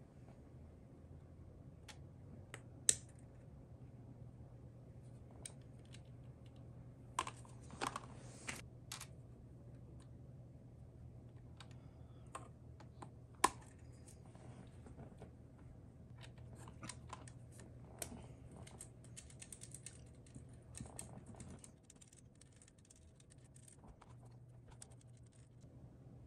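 Scattered small plastic clicks and taps from Topre keyboard parts being handled during lubing, with a denser run of light clicking in the second half. A steady low hum runs underneath and drops away near the end.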